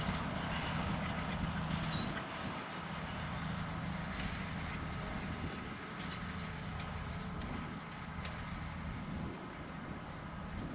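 John Deere 7280R tractor's six-cylinder diesel engine running steadily while working, with occasional clicks and clanks, fading slightly toward the end.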